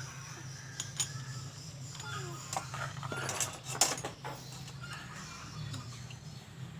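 Small metal clicks and clinks from tools working on an electric hand planer's blade and cutter drum, as the sharpened blade is set and locked down. A few single clicks come first, then a quick cluster a few seconds in, over a low steady hum.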